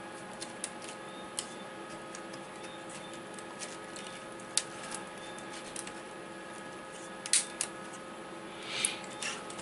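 Scattered light clicks and taps of hands handling a laptop's keyboard top case and metal keyboard plate while a ribbon cable is routed, over a steady faint hum.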